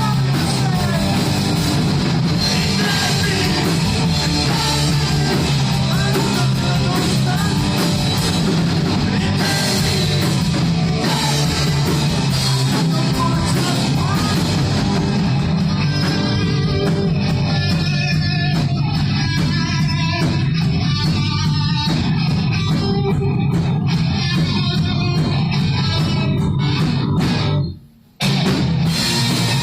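Rock band playing live, with a brief full stop in the music near the end before the band comes back in.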